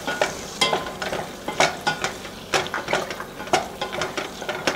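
Chopped onion frying in melted butter in a stainless steel saucepan: a soft sizzle under irregular scrapes and taps of a wooden spatula stirring against the pan, a couple a second.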